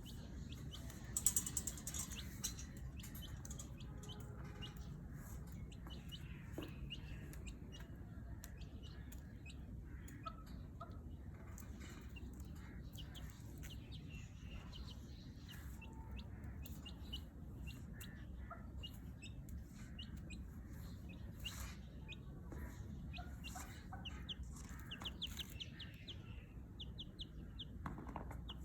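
Baby chick peeping: short, high chirps repeated on and off throughout, a louder cluster about a second in, over a steady low hum.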